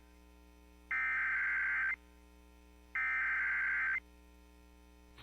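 Emergency Alert System SAME header: two bursts of high-pitched digital data tones, each about a second long and a second apart, the coded header that opens an EAS tornado warning broadcast.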